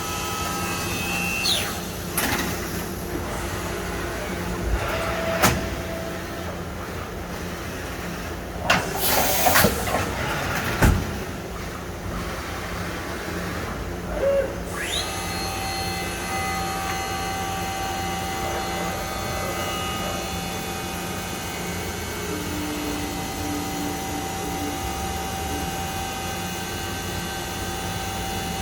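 Okuma five-axis CNC machining center running, its spindle whine falling away about a second and a half in. A few short hissing bursts and a sharp clunk follow around nine to eleven seconds in. Then the whine rises again at about fifteen seconds in and holds steady with several tones.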